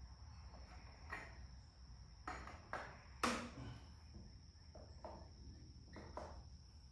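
Scattered light clanks and taps of hands and parts being worked on a tractor's front end, about seven in all, the loudest a little over three seconds in. A faint steady high whine and a low hum sit underneath.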